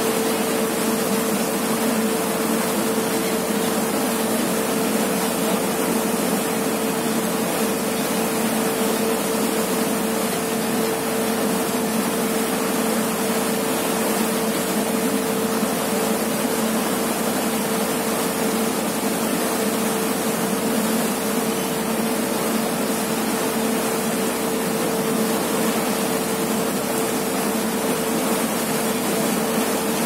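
A ferry's engine running with a steady, unchanging hum, over the constant rush of the propeller wash churning the wake.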